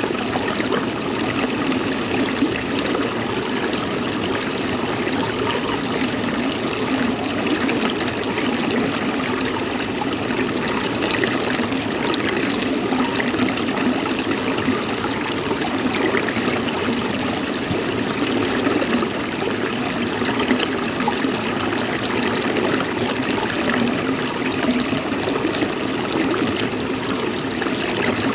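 Water running steadily, a continuous trickling and flowing sound with no breaks.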